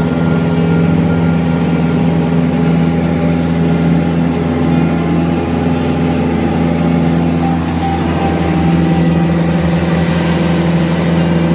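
Light airplane's piston engine and propeller running at takeoff power through the takeoff roll and lift-off, a loud steady drone whose tone shifts slightly about eight seconds in.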